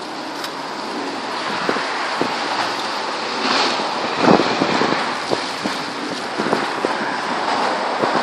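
Strong gale-force wind blowing and buffeting the microphone as a steady rushing noise, with a stronger gust swelling about halfway through and a few short clicks and knocks.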